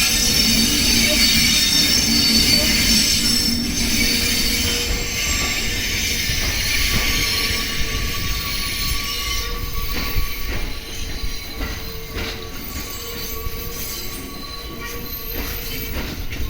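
Train wheels squealing on the rails as an EF81 electric locomotive hauls an E231 series electric multiple unit past, with a continuous rumble underneath. The high squeal is strongest in the first few seconds, and the sound gradually fades over the rest.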